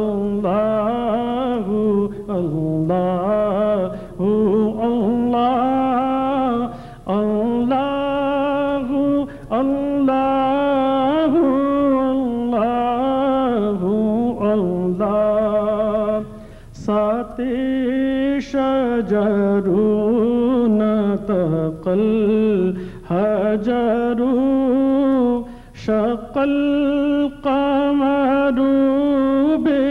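A man singing an Arabic na'at (devotional praise poem) solo and unaccompanied, in long melismatic phrases with wavering held notes and short breaths between lines.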